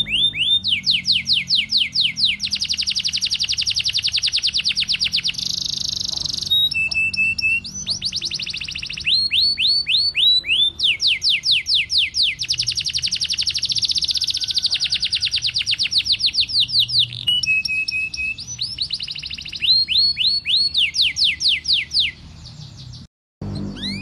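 Domestic canary singing a long song of rapid rolling trills: fast runs of repeated down-sweeping notes broken by short pauses, with a few brief flat notes in between. The song cuts out abruptly near the end.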